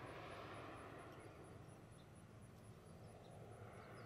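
Faint, distant drone of a crop-dusting airplane's engine as it passes overhead, swelling slightly near the end.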